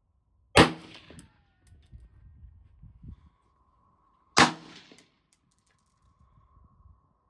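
Two shots from an AR-style semi-automatic rifle fired from a bench, about four seconds apart, each a sharp crack that dies away within half a second.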